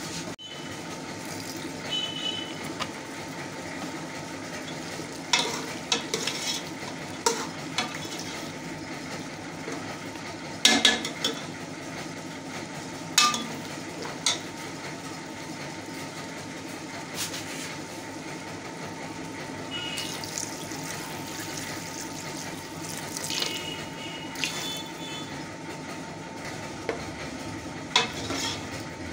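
Metal spoon stirring and scraping meat in a pressure-cooker pot over a steady sizzle, with scattered sharp knocks of the spoon against the pot.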